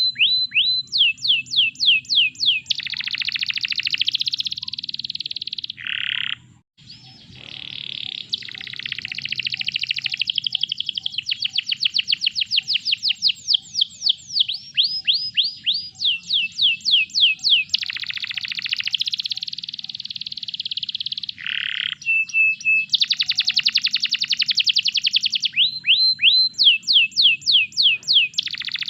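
Domestic canary singing a long, continuous song: phrases of rapidly repeated high, down-sweeping notes, several to about ten a second, alternate with dense buzzy rolls, with a short break about six seconds in.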